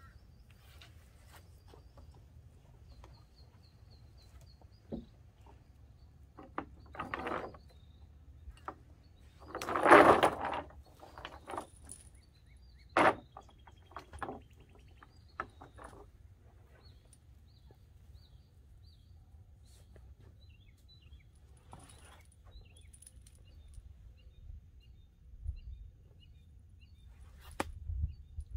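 Cast net and its rope being handled and readied for a throw: scattered rustles and knocks, the loudest a rustle about ten seconds in and a sharp knock about three seconds later. Small birds chirp faintly throughout.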